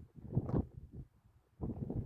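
Wind gusting over the microphone as low buffeting, with a strong gust about half a second in and another near the end, dropping away in between.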